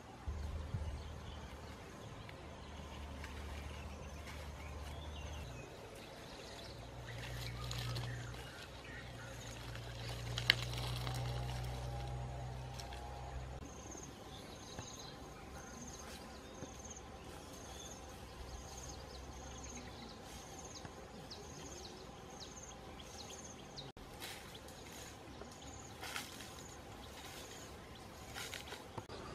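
Outdoor ambience of insects and birds in grassland: a high chirp repeating about once a second through the middle, over a low rumble that fades after the first half. One sharp click about ten seconds in.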